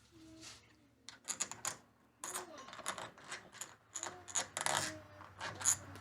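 Deadbolt hardware and its mounting screws clicking and clinking as they are handled and started by hand: a string of irregular light clicks from about a second in.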